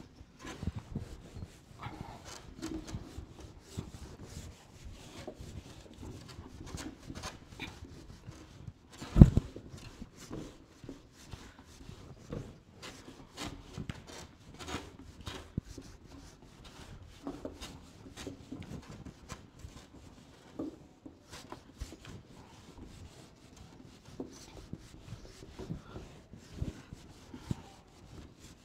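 Whiteboard eraser rubbing back and forth across a whiteboard in irregular scrubbing strokes, wiping off marker writing. One loud thump about nine seconds in.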